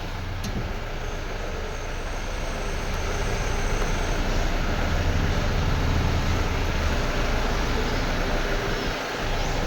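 Mahindra Bolero's diesel engine idling steadily while the power steering is turned, with no belt squeal: the fan belt has just been tightened. The engine note grows a little louder in the middle as the steering is worked.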